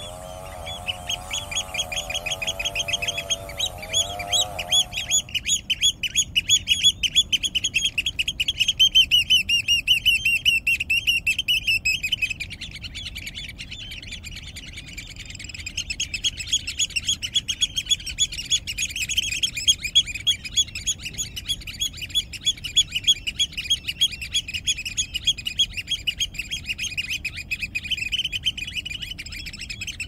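Birds chirping in fast, repeated trills, a dense high-pitched chorus that drops away for about three seconds about twelve seconds in and then resumes. A lower wavering call runs under the chirps for the first five seconds.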